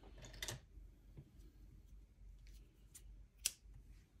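Scissors cutting a strand of worsted-weight acrylic yarn to fasten off, with one sharp snip about three and a half seconds in and a few fainter clicks and rustles of handling before it.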